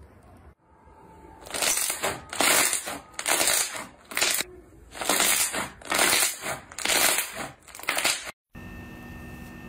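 Thick white slime pressed and squeezed by hand, giving about eight loud crackling, crunching bursts, one with each press. Near the end it cuts off abruptly to a steady hum.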